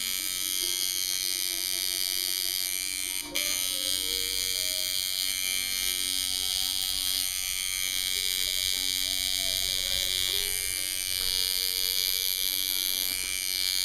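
Electric tattoo machine buzzing steadily while its needles work ink into skin. The buzz breaks off for a moment with a click about three seconds in.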